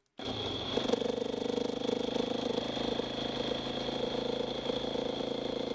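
Motorcycle engine running at a steady speed while riding along a road, heard from the rider's camera, with a steady high-pitched whine above it. It starts abruptly just after the beginning and holds an even pitch.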